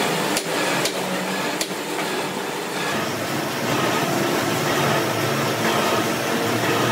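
Workshop metalworking machines, a shaping machine and lathe, running with a steady mechanical drone, with a few sharp metallic clicks in the first two seconds.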